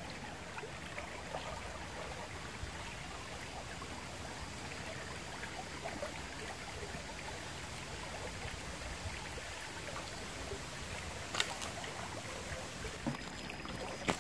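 A small shallow river flowing and trickling steadily, with a brief sharp click about eleven seconds in.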